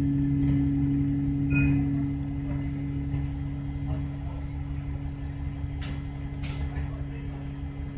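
Alexander Dennis Enviro200 XLB bus running, a steady low drone and rumble that eases off a little after about two seconds. A short electronic beep sounds about one and a half seconds in, and a couple of brief hisses come near the end.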